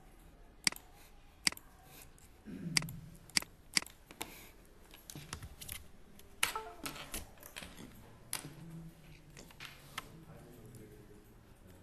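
Computer mouse clicking: a dozen or so short, sharp clicks spaced irregularly, sometimes two or three in quick succession.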